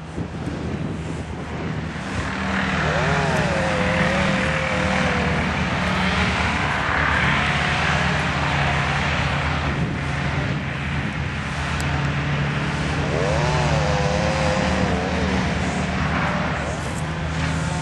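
Car driving, heard from inside: a steady engine hum with road and wind noise. A brief pitched warble rises and falls twice, about 3 seconds in and again about 13 seconds in.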